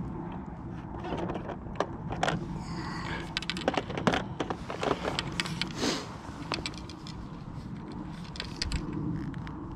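Fishing tackle being handled while a pole-fishing rig is changed: a dense run of small clicks, taps and rattles, busiest in the middle, over a steady low rumble.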